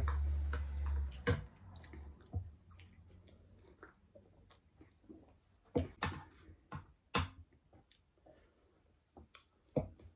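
Close-up eating sounds: chewing, with sharp clicks of spoons and forks against plates scattered through. A low rumble fills the first second or so.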